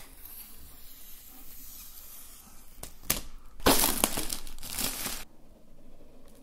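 Plastic shrink-wrap film being pulled off a laptop box: a couple of sharp crackles about three seconds in, then loud crinkling for about a second and a half that stops suddenly.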